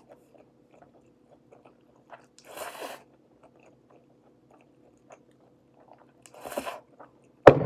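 A person slurping instant noodles: two noisy slurps about four seconds apart, with soft chewing ticks between them. A sharp knock comes right at the end.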